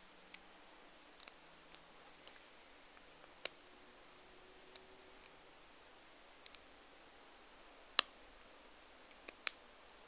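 Small, sharp, irregular clicks of a lock pick working the pins in the keyway of a Union five-pin padlock during single-pin picking, about a dozen in all, with one much louder click about eight seconds in.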